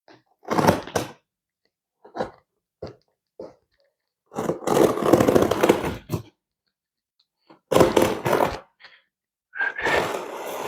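Cutting and tearing packing tape on a large cardboard shipping box, with scraping and rustling in several bursts; the longest lasts about two seconds, starting about four seconds in.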